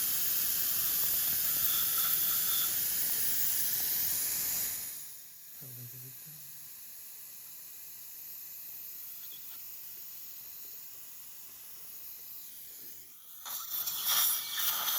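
Dental surgical suction hissing steadily; it cuts out about five seconds in and comes back in short pulses near the end.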